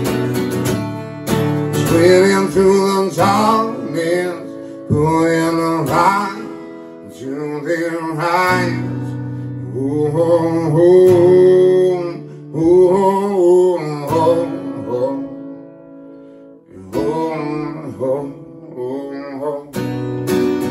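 Acoustic guitar strummed while a man sings over it in phrases. The voice stops a few seconds before the end, and the guitar thins briefly before the strumming picks up again.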